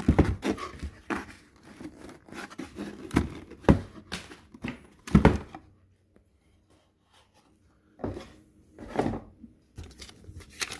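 Cardboard packaging and paper inserts being handled and rummaged through: scattered knocks, scrapes and rustles, with a pause of near silence in the middle.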